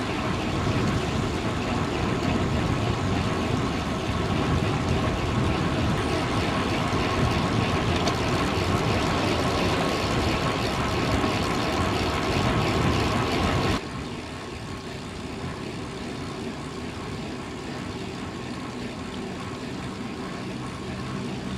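Wind rushing over the microphone with road noise while riding a bicycle; the noise drops suddenly and stays quieter about two-thirds of the way through.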